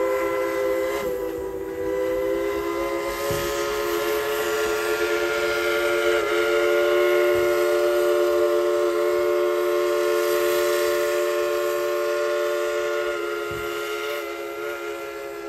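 Steam whistle of Klondike Katie, White Pass & Yukon No. 192, a 2-8-2 Mikado steam locomotive, blowing one long blast: a chord of several notes held steady, easing briefly about a second in, then swelling again and tapering slightly near the end.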